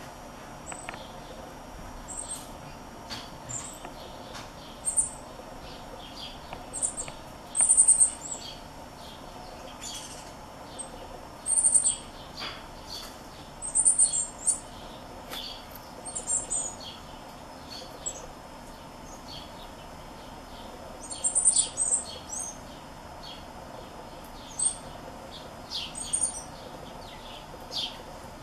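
Northern cardinals chirping: short, high, sharp calls in clusters every second or two, the hungry fledgling begging while its father feeds it.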